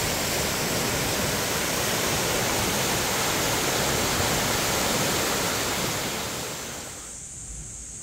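Mountain stream rushing over rock slabs and small cascades below a waterfall: a steady rush of water that fades away about two-thirds of the way through.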